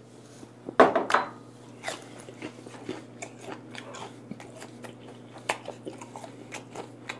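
Close-miked chewing of a mouthful of vinegar-cured mackerel with raw onion and radish sprouts: crunchy, with many small irregular clicks of teeth and food. There is a brief louder mouth sound about a second in.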